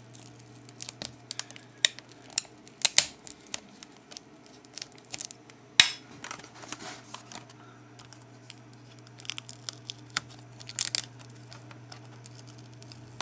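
Plastic adhesive tape being peeled off the data-cable connector on the back of a laptop LCD panel, crackling and tearing in short irregular bursts, with one sharp click about six seconds in.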